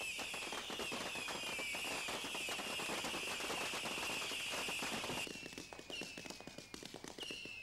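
Barrage of fireworks rockets: many high whistles sliding slowly downward over a dense crackle of small bangs, thinning to separate whistles and pops about five seconds in.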